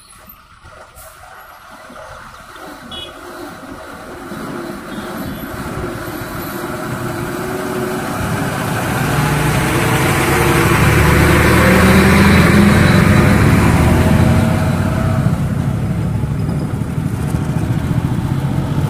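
Heavy diesel goods trucks driving past: engine rumble and tyre noise grow louder over about ten seconds to a peak as a truck goes by. Traffic noise stays loud afterwards.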